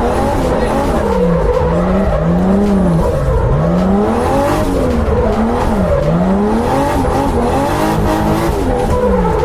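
Zhiguli drift car's engine revving hard and easing off again and again under throttle while being driven sideways, its pitch rising and falling several times.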